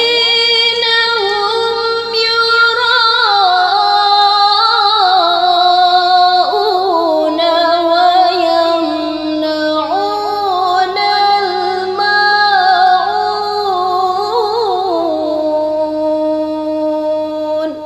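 A Quran reciter's voice chanting tilawah in a long, unbroken, ornamented melodic line, the pitch gliding up and down through melismas. It ends near the end.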